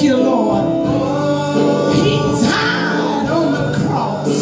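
Gospel vocal group singing in harmony, several voices holding and moving between sustained notes.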